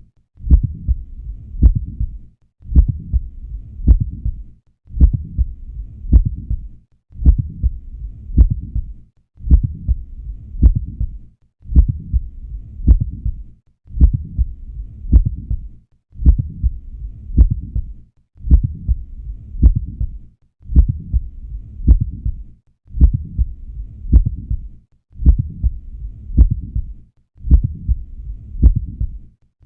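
Heart sounds heard through a stethoscope at the cardiac apex: a mid-systolic click between the first and second heart sounds, the classic sign of mitral valve prolapse. A short recording of a few beats repeats about every two seconds, with a brief silent gap between repeats.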